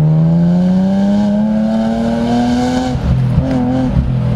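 BMW M Roadster's S50B32 straight-six accelerating hard, its pitch climbing steadily for about three seconds as the revs rise. Then it breaks off briefly with a couple of knocks and runs on at a lower pitch.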